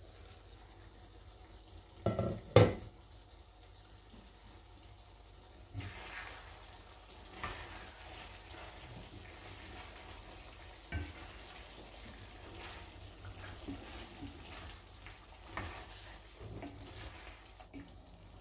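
A wooden spoon stirs thick pork stew in an enamelled cast-iron Dutch oven, with irregular scraping strokes and a few knocks against the pot. Two loud clanks come about two seconds in.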